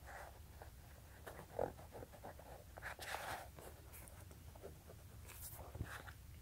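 Faint, irregular rustling and scraping of hands handling a new Nike Air Jordan Future Flight basketball sneaker, fingers rubbing over its laces and leather upper, with a few soft knocks.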